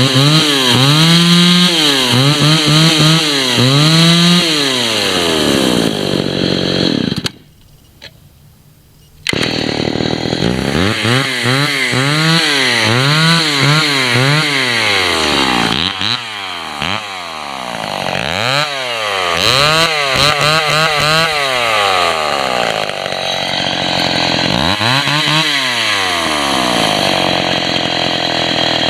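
Vintage Stihl two-stroke chainsaw running and being revved repeatedly, each throttle blip rising and falling back in about a second, with spells at idle between. The sound drops out for about two seconds, seven seconds in.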